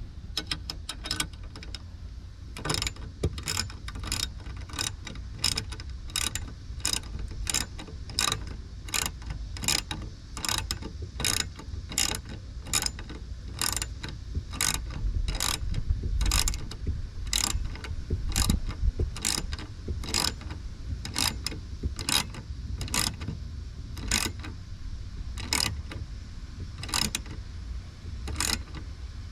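Hand ratchet wrench turning a nut down onto its lock washer: short ratcheting clicks on each back-swing, coming evenly about one and a half times a second.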